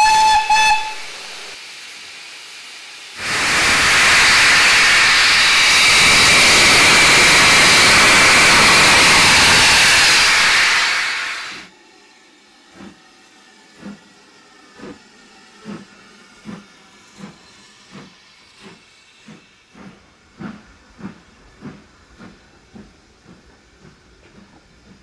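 Steam locomotive 80078, a BR Standard Class 4 2-6-4 tank engine, ends a short whistle at the very start, then blows a loud, steady hiss of steam for about eight seconds as the train gets under way. The hiss then stops and the coaches roll past, their wheels clacking over rail joints about once a second, coming quicker as the train picks up speed.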